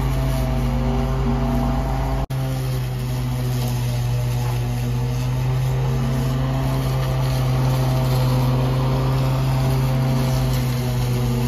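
Greenworks corded electric lawn mower running with a steady motor-and-blade hum as it is pushed through tall, thick grass.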